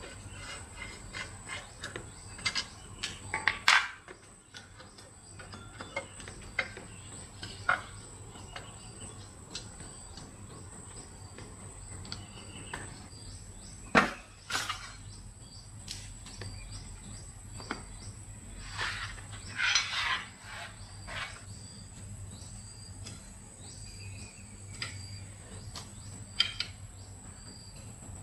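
Scattered clicks and knocks from hands-on work on a 4-stroke engine water pump, the loudest about 4, 14 and 20 seconds in, over a steady high-pitched insect drone.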